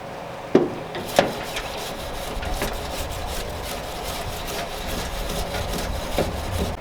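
Grill brush scrubbing the cooking grates of a charcoal grill-smoker in quick repeated strokes, after a couple of sharp knocks near the start, clearing off cooked-on chicken residue.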